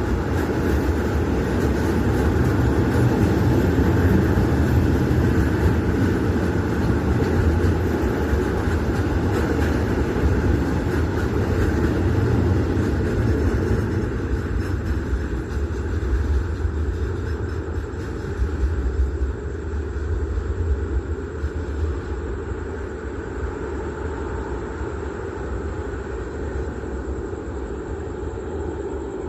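Freight train hauled by an Alsthom diesel locomotive rolling past, a steady rumble of wheels on rail that grows fainter in the second half.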